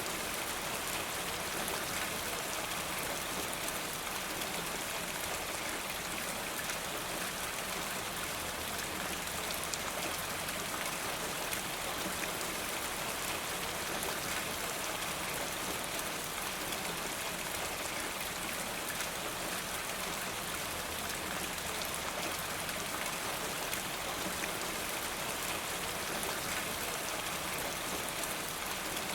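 Steady rain falling, with many separate drops hitting hard surfaces and water running off a rain gutter.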